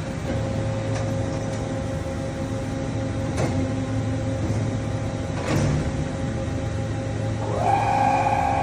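SNK RB-200F CNC gantry machining center running under power: a steady hum with a constant tone, broken by two sharp clicks a couple of seconds apart. Near the end a motor whine rises and then holds steady, as an axis of the machine starts to traverse.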